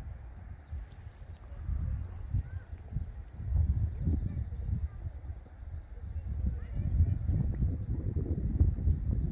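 Wind buffeting the microphone in low gusts, louder from about three and a half seconds in. Under it a cricket chirps in an even rhythm, a few short high chirps a second.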